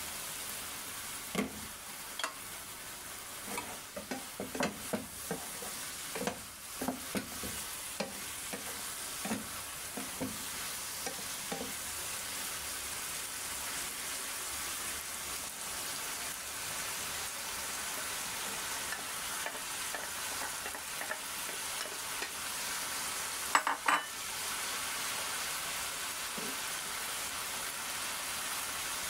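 String beans, carrots and eggplant sizzling in a frying pan while a wooden spatula stirs and scrapes them. There is a run of knocks from the spatula through the first dozen seconds and a couple of louder knocks about two-thirds of the way through.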